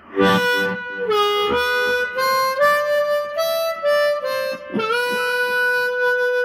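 C harmonica played through a Hohner Harp Blaster microphone into a Roland Cube Street amplifier with the delay effect on: a short run of notes stepping up and back down, ending on one long held note.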